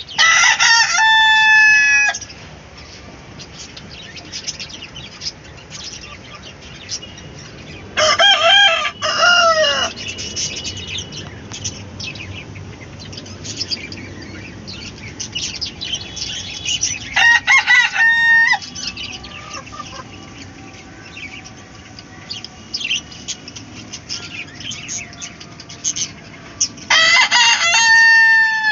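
Rooster of Indian country chickens crowing four times, a long two-second crow roughly every nine seconds, with hens clucking and short chirps in between.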